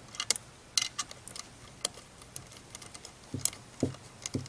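Light metal clicks and taps of nuts and washers being threaded by hand onto the studs of an outboard's water pump housing, with a few duller knocks near the end.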